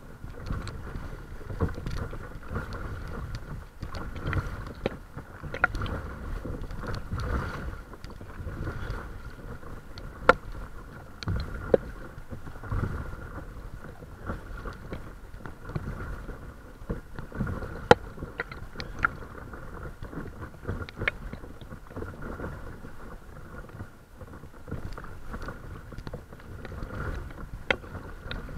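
Water lapping and splashing against the nose of a paddleboard under way, a continuous low rumble with scattered sharp drip and splash clicks, the loudest about ten, twelve and eighteen seconds in.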